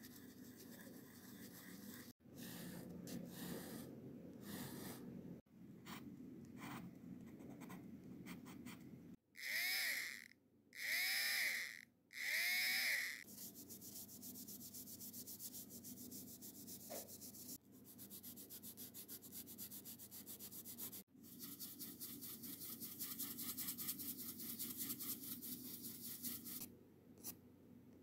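Graphite pencil scratching and hatching on drawing paper, with soft brush-blending strokes, in a string of cut-together takes. Near the middle come three loud squeaky bursts of about a second each. The later part is quick, closely repeated short strokes.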